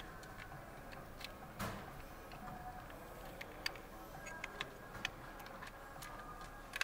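Scattered light metallic clicks and taps of a lower timing-chain tensioner and its bolt being handled and fitted into place on a D4HB diesel engine, with the sharpest click about one and a half seconds in.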